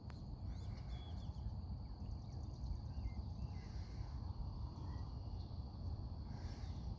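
Evening insects making a steady high drone, with a few short bird chirps scattered through it, over a steady low rumble.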